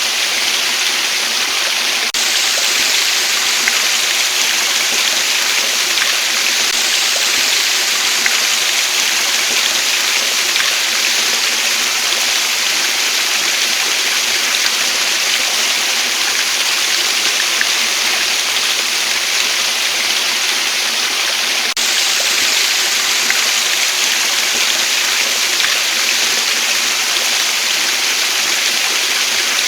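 Waterfall: a steady, even rush of falling water with no change in strength.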